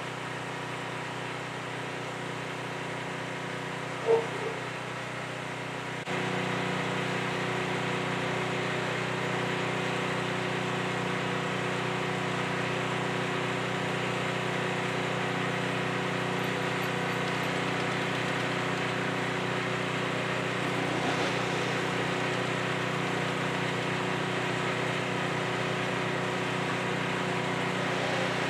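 Engine idling steadily, getting a little louder about six seconds in, with one brief sharp chirp about four seconds in.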